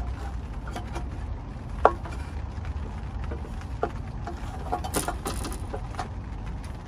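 Honda B18C valve cover being lowered and seated onto the cylinder head: a few light knocks and clinks, the sharpest ringing briefly about two seconds in, and a small cluster of taps about five seconds in, over a steady low rumble.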